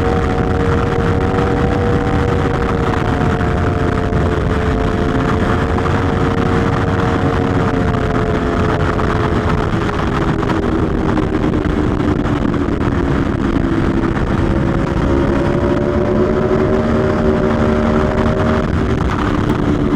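Aprilia Tuono V4 1100 Factory's V4 engine running hard at speed, with wind rushing past. The engine note sags slowly, steps up in pitch about two-thirds of the way in, then drops again near the end.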